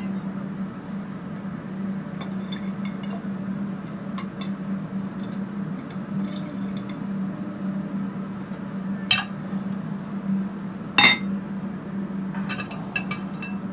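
Light metal clinks and taps of tongs against a pickle pot as a sterling silver pendant is fished out of the pickle solution, with two louder clinks past the middle. A steady low hum runs underneath.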